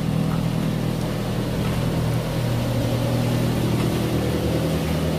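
Daihatsu Gran Max 1.3-litre pickup engine idling steadily, a smooth, even running sound with no rough noises.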